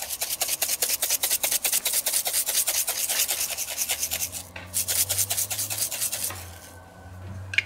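Hand-twisted pepper mill grinding peppercorns: a quick run of rasping clicks from the grinder, with a short break partway through, stopping about six seconds in.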